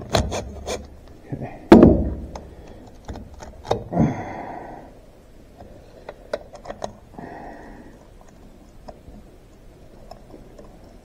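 Metal parts clicking and knocking inside a Minneapolis-Moline M670 tractor's shift-lever housing as the shift-rail and interlock pieces are worked into place by hand. A burst of clicks comes first, then a heavy thunk about two seconds in and another near four seconds, followed by sparse light taps.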